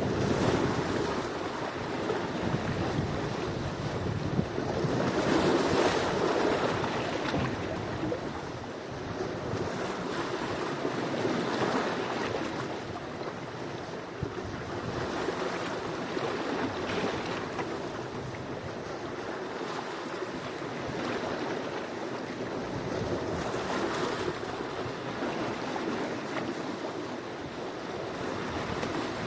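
Sea waves breaking and washing on the shore, the surf swelling and ebbing about every five seconds.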